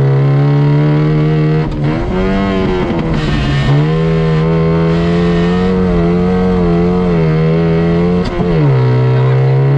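Off-road competition car's engine running hard, heard inside its open cabin. The revs climb about two seconds in, dip briefly, hold high, then drop near the end, with a couple of sharp knocks along the way.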